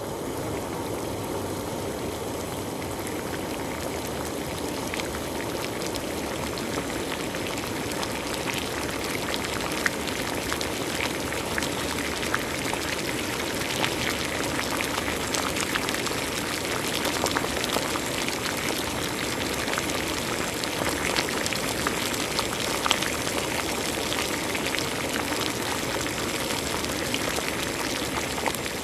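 Water at a rolling boil, a steady dense bubbling peppered with small pops.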